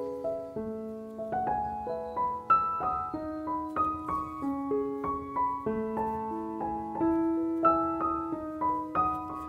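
Background piano music: a slow, gentle melody of single notes over held lower notes.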